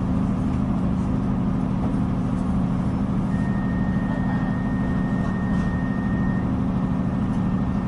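Cabin sound of a Translink diesel multiple-unit train: the underfloor diesel engine and running gear making a steady hum. A steady high tone sounds for about three seconds in the middle.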